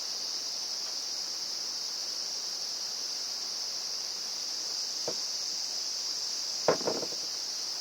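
Steady, high-pitched chirring of insects. A faint click comes about five seconds in, and a louder double click comes near seven seconds.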